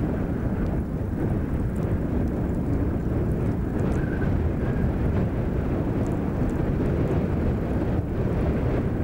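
Steady low rumble of wind on the microphone, with faint scattered crackles as the lava flow front burns through vegetation.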